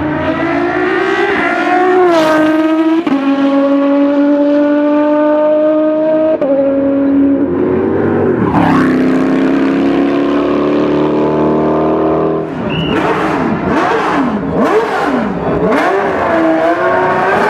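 Ferrari 333 SP's V12 racing engine accelerating hard and changing up through the gears, its pitch climbing and then dropping at each shift. About two-thirds of the way through, engine notes sweep up and down as cars pass by.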